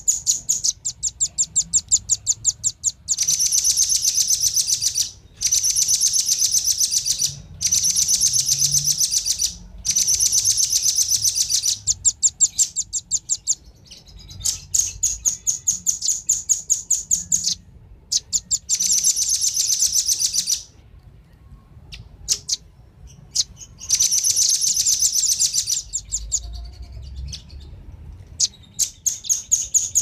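Velvet-fronted nuthatches calling: rapid, high-pitched chips that run together into chattering trills of about two seconds, repeated again and again, with sparser single chips between the trills.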